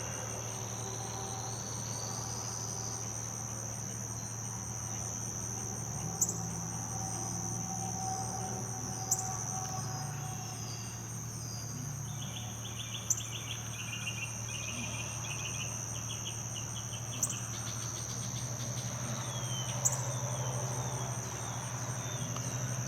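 A steady, high-pitched insect drone, like crickets, runs under sharp single bird notes that come about every three to four seconds. Short down-slurred bird calls and, around the middle, a rapid trill of repeated notes come from songbirds such as cardinals and northern mockingbirds. A low, steady hum sits underneath.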